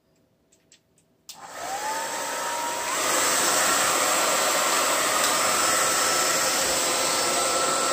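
Hair dryer switched on about a second in: its motor whine rises as it spins up, then it runs steadily on high heat with a loud rush of air.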